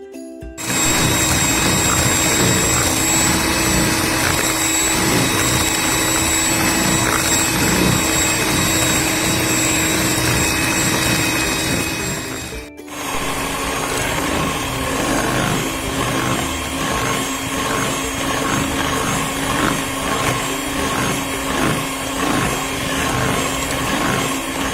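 Electric hand mixer running at its third speed setting, beating eggs and sugar until the batter is pale, thick and leaves trails. It is a steady motor whine over the churning of the batter, with a short break about halfway through, after which it runs on at a slightly different pitch.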